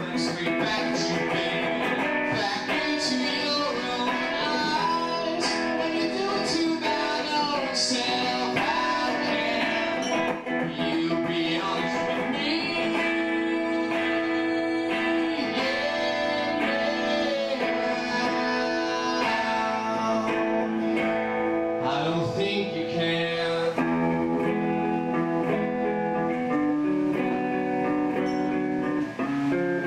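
A man singing while playing an electric guitar live. Near the end he stops singing and the guitar carries on alone.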